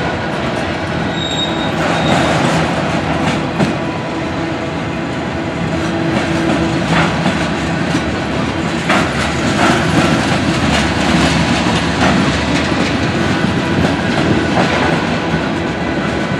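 Mixed freight train of tank cars, autoracks and covered hoppers rolling past close by: a steady rumble of steel wheels on rail, with repeated clicks as the wheel trucks cross rail joints.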